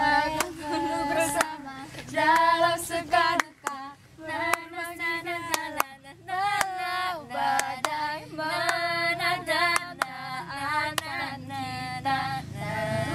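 A small group of teenage girls singing a song together without instruments, with scattered hand claps.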